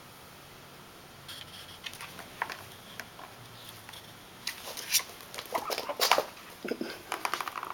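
Plastic balls knocking and rolling in a plastic ball-track cat toy as a Persian kitten bats at them: irregular clicks and rattles that start about a second in and grow louder and busier in the second half.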